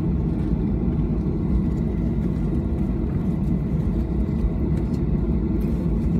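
Steady low rumble inside the cabin of a Boeing 737-800 taxiing after landing, its engines at taxi power and its wheels rolling, with a faint steady high whine above it.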